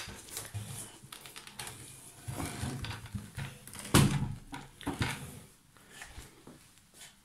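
Scattered clicks, taps and rustles, with a sharp knock at the start and a loud thump about four seconds in.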